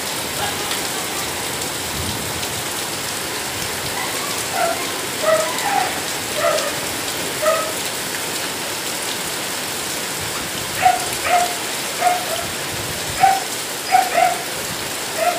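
Heavy rain falling steadily, with a dog barking several times from about four seconds in and again repeatedly through the second half.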